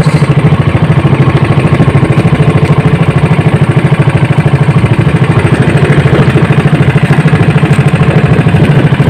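Small engine of a motorized outrigger fishing boat running steadily, with a fast, even chugging pulse.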